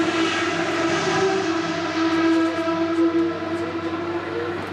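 Ferrari 333 SP's 4.0-litre V12 idling at a steady, even note while warming up, heard close behind its exhaust pipes.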